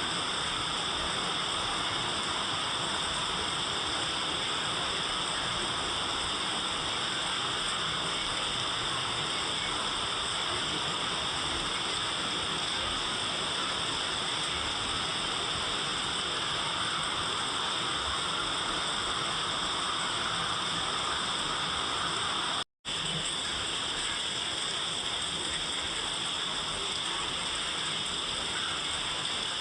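Steady, even rain hiss with no individual drops standing out. It cuts out to silence for a split second about three-quarters of the way through.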